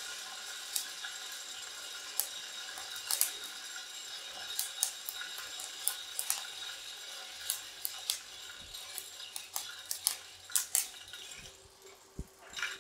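Freshly roasted coffee beans turned by the stirring arm in the Hottop KN-8828B-2K+ roaster's perforated metal cooling tray: scattered sharp clicks and clinks of beans against the metal over a steady hiss of air drawn through the tray to cool them. The hiss drops away near the end.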